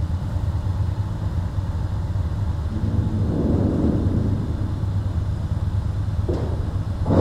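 Motorcycle engines idling steadily, the nearest being a Honda Transalp 650's V-twin, with a low hum that swells briefly about three seconds in.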